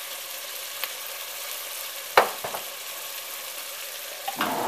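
Ground beef, onions and garlic sizzling steadily in a stainless steel pot on the stove as tomato spaghetti sauce goes in, with a sharp knock about two seconds in and a brief louder clatter near the end.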